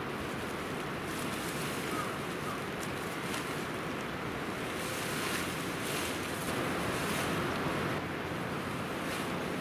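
Steady rushing background noise, with a few soft rustles of nylon fabric as a DOD one-touch pop-up fishing tent is unfolded and pulled up.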